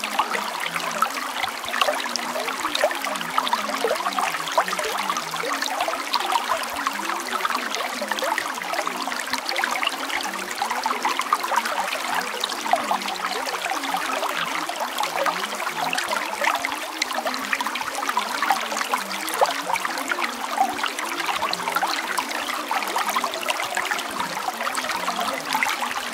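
Running water trickling steadily, like a small stream, with no break or change.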